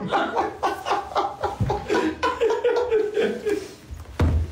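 A man laughing hard at his own joke, a run of short, rhythmic bursts of laughter, with a low thump near the end.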